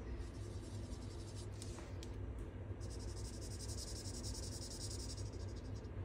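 Alcohol marker scribbling quickly back and forth on a small cardstock tag: a faint, fast, even scratching that comes in about two and a half seconds in and stops just before the end, after a few light ticks of the tip, over a steady low hum.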